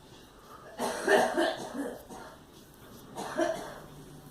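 A girl coughing: a fit of several coughs in quick succession about a second in, then another short cough about three seconds in.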